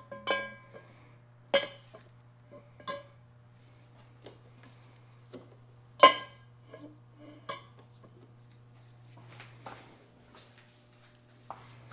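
Steel tubing being handled in a steel milling-machine vise: a series of sharp metallic clanks, each ringing briefly, the loudest about six seconds in.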